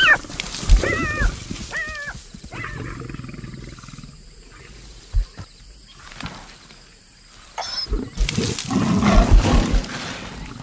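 A black-backed jackal gives about four short, high, whining yelps in the first three seconds. Near the end a lion growls loudly.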